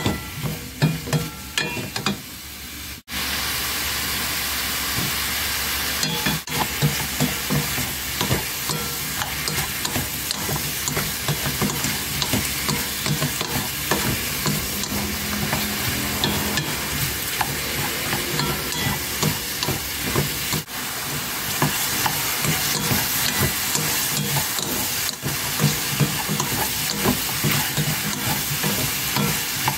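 King oyster mushrooms, carrots and shiitake stir-frying in a pan: a steady sizzle, with the wooden spatula clacking and scraping against the pan as the pieces are tossed. The sizzle is softer for the first few seconds and breaks off briefly a few times.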